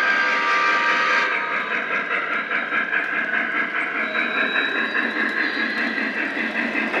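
A Lionel O-gauge model steam train, a Pennsylvania locomotive hauling passenger cars, rolling past on three-rail track with a steady rhythmic clatter. A held tone, the loudest sound, stops about a second in.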